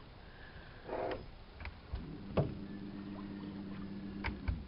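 Small electric motor, likely the boat's bow-mounted trolling motor, humming steadily for about two and a half seconds: it spins up about two seconds in, holds one even pitch, and winds down just before the end. A few sharp clicks sound over it.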